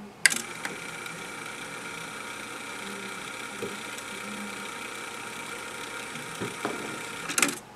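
Denon DRM-650S cassette deck rewinding a tape. A click comes as the rewind engages, then a steady whir with a thin high whine as the tape spools back. Near the end a clunk comes as the transport stops with the counter back at zero.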